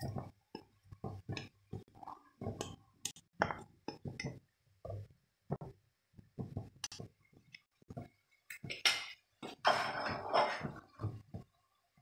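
Wooden spoon knocking and scraping peeled shrimp out of a plastic strainer into a metal pan: a run of irregular light knocks and clinks, with a longer scraping rustle about three quarters of the way through.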